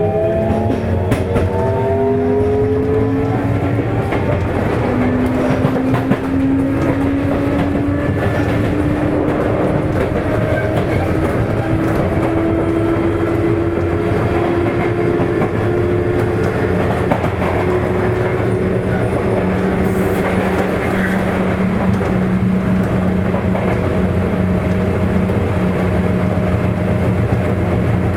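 Sotetsu 8000-series electric train heard from inside a motor car, running with its Hitachi IGBT-VVVF inverter and traction motors. Whining tones rise in pitch through the first half as the train gathers speed, then settle to a steady hum, over continuous wheel-and-rail rumble.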